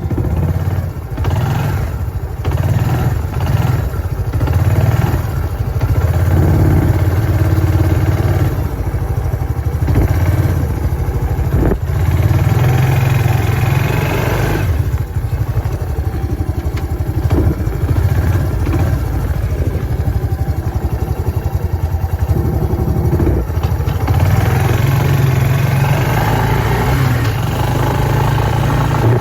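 Small off-road vehicle engine running continuously, with the revs changing now and then.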